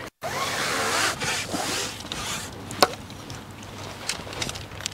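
Rustling and rubbing handling noise, with one sharp click a little past halfway and a few fainter ticks after it.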